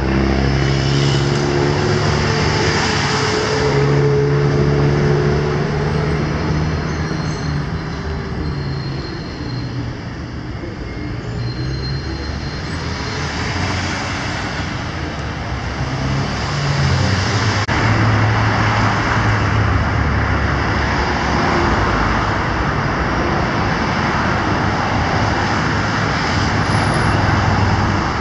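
Road traffic on a city boulevard: cars, motorcycles and buses passing, with a steady low engine drone. The traffic eases off about ten seconds in and builds again a few seconds later.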